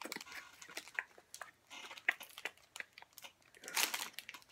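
Foil card-pack wrappers crinkling and baseball cards being handled, in scattered faint crackles and clicks, with a longer crinkle near the end.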